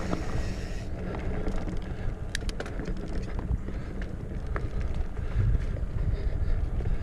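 Mountain bike riding along a dirt trail: a steady rumble of tyres and wind buffeting the microphone, with a few sharp clicks and rattles from the bike in the middle.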